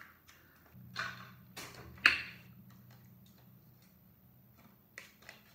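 A few short clicks and taps from small objects being handled close to the microphone, the loudest about two seconds in, over a faint low hum.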